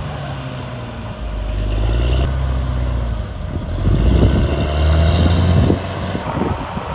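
Caterpillar D6R bulldozer's diesel engine running under changing load, its pitch rising and falling, with rattling from the machine. It is loudest from about four to nearly six seconds in, then eases off.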